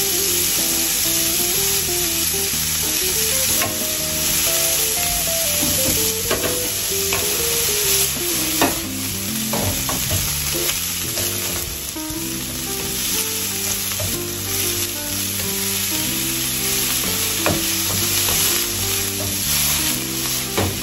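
Broccoli sizzling in hot oil in a non-stick frying pan while it is stirred and turned with a wooden spatula, with a few sharp knocks of the spatula against the pan.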